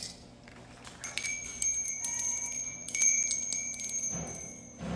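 Small metal bells on a hanging charm jingling and ringing as it is picked up and shaken, a clear ringing tone under quick jingling strikes, starting about a second in. A soft low handling thump comes near the end.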